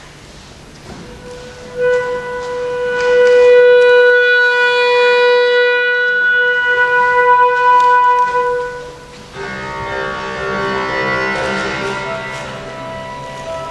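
A flute holds one long note for about seven seconds, starting about two seconds in. Then the rest of the chamber ensemble (flutes and strings) comes in, and several parts play together.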